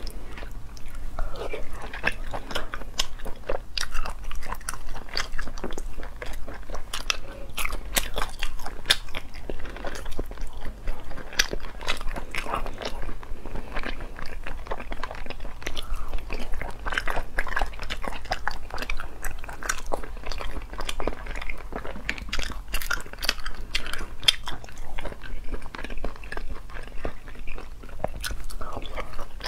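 Close-miked eating of snails in chili sauce: a steady run of wet mouth clicks, smacks and crunchy chewing as the meat is pulled from the shells and eaten.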